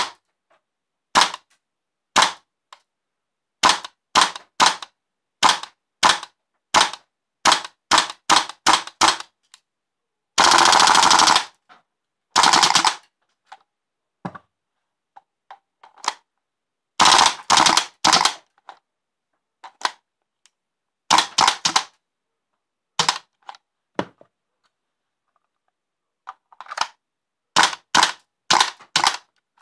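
WE M4A1 gas-blowback airsoft rifle firing, each shot a sharp crack with the bolt cycling. It starts with a string of single semi-auto shots that come faster and faster, then fires full-auto bursts of about a second, the longest about ten seconds in, followed by more bursts and single shots.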